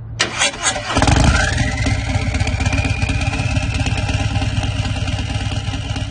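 Motorcycle engine starting and running after a few sharp clicks, with a whine that rises in pitch over its first second and then holds steady.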